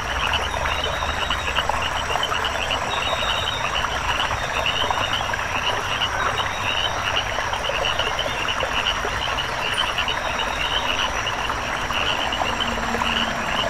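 A dense chorus of many frogs calling together, with rapid short croaks overlapping steadily throughout.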